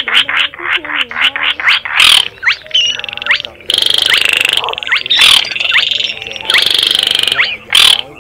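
Baillon's crake (cuốc lùn) calls from a bird-trapping lure recording: a fast run of dry clicks, then frog-like rasping rattles broken by quick sweeping notes.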